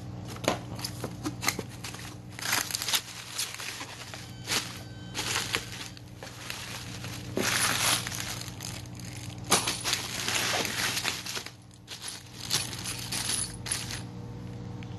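Bubble wrap and plastic packing bags crinkling and rustling in irregular bursts as they are pulled out of a cardboard box by hand, with metal bolts and washers clinking inside a plastic bag.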